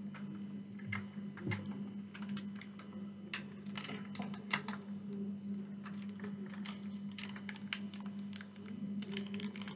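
A plastic sauce sachet crinkling and crackling in the hands, torn open and then squeezed over chips, making irregular sharp clicks that are thickest a few seconds in. A steady low hum runs underneath.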